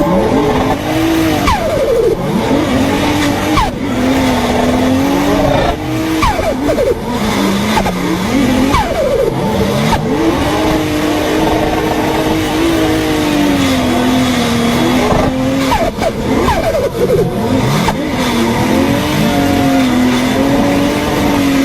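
Turbocharged car engines running hard under load, holding a steady engine note that is broken every few seconds by quick rising revs, with turbo flutter on lift-off.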